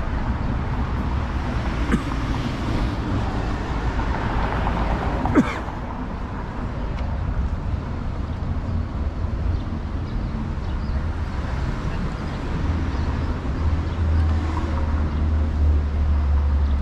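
City street traffic noise with steady passing vehicles. A deep rumble from a heavy vehicle builds over the last few seconds, and two sharp knocks stand out about two and five seconds in.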